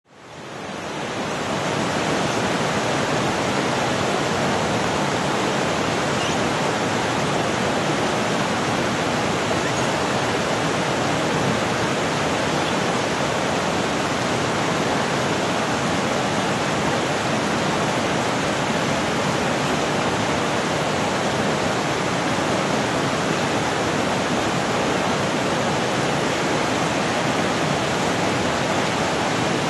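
Steady rushing of flowing water, a loud even hiss with no pauses, fading in over the first couple of seconds.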